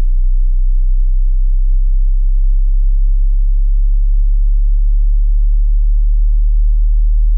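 Hearing-test sine tone: a single loud, very low, steady pure tone, the low end of a test sweep that checks how far the ear can hear.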